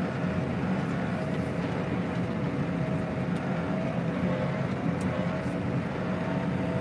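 Tractor engine running steadily under way, heard from inside the cab, with a thin steady whine held above the engine's low drone.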